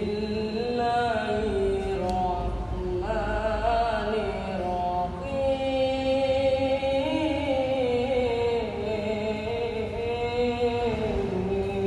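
A boy's solo voice reciting the Qur'an in the melodic tilawah style through a microphone, holding long ornamented notes that rise and fall.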